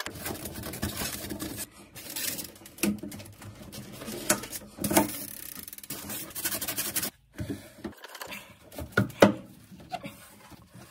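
Hands and tools working on central heating pump fittings: rubbing and rustling with scattered clicks and knocks, which come sparser and sharper in the last few seconds.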